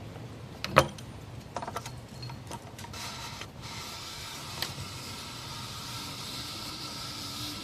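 Plastic oil filter housing cap being turned by hand onto the housing, with one sharp click about a second in and a few lighter clicks after it. A steady hiss sets in about three seconds in.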